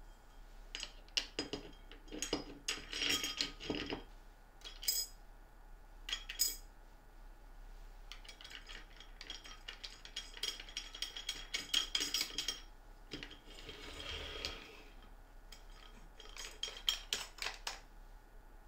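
An aluminium extrusion fence clinking and scraping against aluminium T-track rails on a plywood base as it is fitted and slid into place: several clusters of small metallic clicks and rattles, with a longer sliding scrape about two thirds of the way through.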